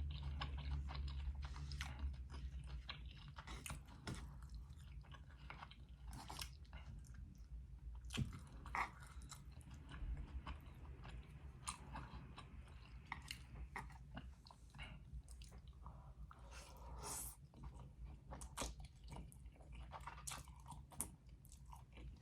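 Chewing and mouth sounds of someone eating chili oil noodles and steamed dumplings: irregular soft smacks and clicks.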